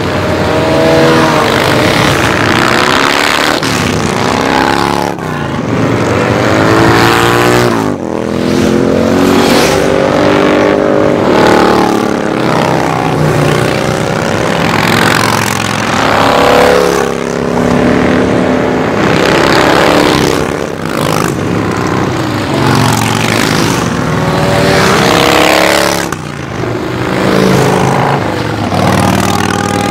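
A continuous stream of motorcycles, mostly big cruiser and touring bikes, riding past one after another. Each engine note swells and drops in pitch as it goes by, with several bikes overlapping at once.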